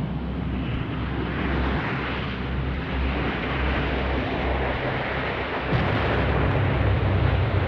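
Aircraft noise: a loud, steady rumble with a deep hum beneath it, growing louder about six seconds in.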